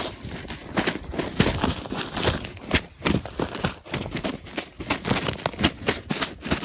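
Irregular rustling and crunching, several sharp crackles a second with no steady rhythm, like movement or handling in dry brush.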